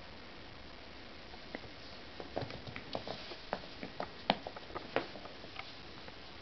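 Puppy playing with a toy dangled on a string over a rug: irregular light taps and clicks, busiest from about two to five seconds in.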